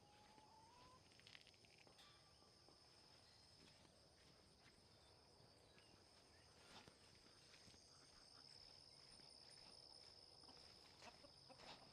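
Near silence, with the faint steady high drone of insects such as crickets or cicadas and a few soft ticks.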